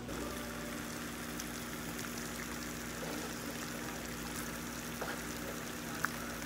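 A pot of pasta in creamy feta and tomato sauce sizzling and bubbling steadily on the stove, with a steady low hum underneath and a couple of faint clicks.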